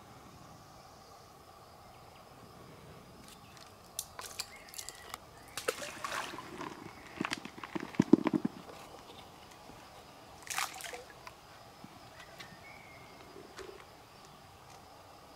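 Light splashing and dribbling of stream water as a small fish is played on a float rod, with scattered clicks and knocks of handling the tackle, thickest in the middle.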